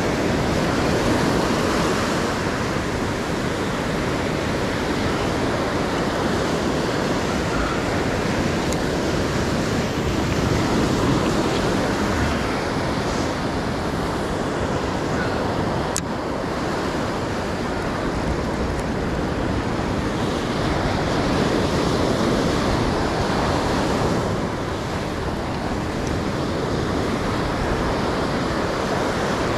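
Ocean surf breaking and washing up a sandy beach in a steady wash of noise, with wind on the microphone.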